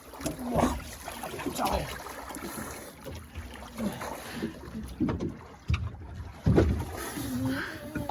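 Wind buffeting the microphone on a small boat on the water, with irregular low thumps and water noise.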